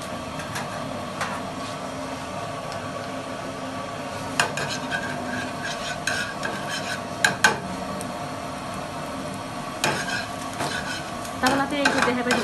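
Small chopped pieces frying in oil in a black frying pan with a steady sizzle, as a metal ladle and tongs scrape and clink against the pan while stirring. Sharp clinks come about four and seven seconds in, and a busier clatter of metal on the pan near the end.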